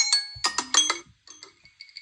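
Smartphone ringtone: a repeating melody of short, bright, marimba-like notes. Three quick notes come about half a second in, followed by a fainter high chiming.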